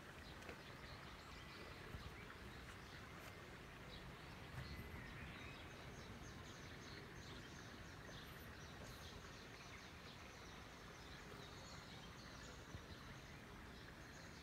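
Quiet outdoor ambience: a faint, even hiss with faint, high bird chirps scattered through the second half.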